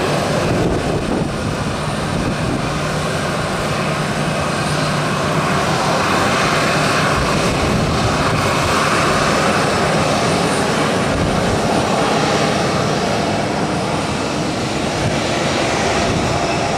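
Four-engine Airbus A340 jet airliner on final approach to land, its engines giving a steady, even noise that swells a little in the middle.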